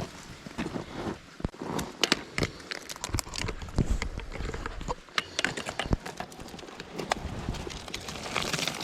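Footsteps and scrambling on loose, crumbling rock and gravel: irregular crunches and knocks of shifting stones underfoot.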